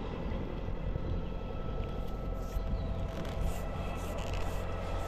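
Steady low engine rumble with a few faint, even whining tones above it, holding at an even level.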